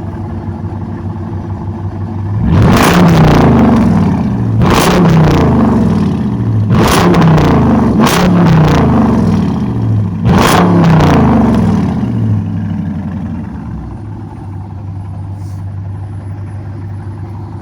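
2019 Dodge Charger R/T's 5.7-litre HEMI V8 free-revved about five times from idle, each rev falling away in pitch, then settling back to idle, through an exhaust with the mid muffler and resonator deleted and the catalytic converters kept.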